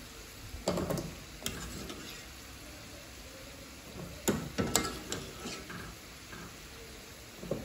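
Almond-filled pastries frying in a pan of hot oil with a steady sizzle, while a metal slotted spatula clinks against the honey pot and metal colander several times as pastries are lifted out and set down to drain.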